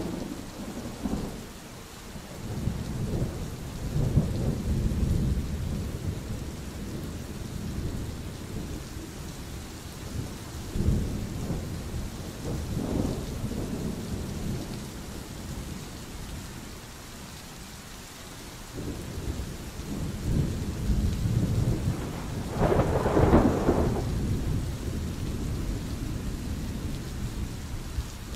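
Thunderstorm: steady rain hiss with repeated low rolls of thunder that swell and fade, the loudest and sharpest roll near the end.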